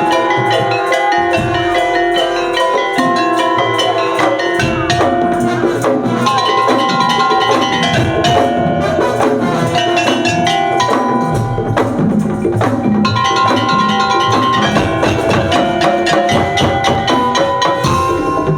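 Madurese tongtong (daul) ensemble playing: a dense rhythm of wooden percussion and drums under a melody of tuned percussion.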